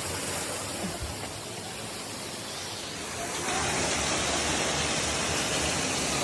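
Waterfall rushing: a steady noise of falling water that gets louder about three and a half seconds in.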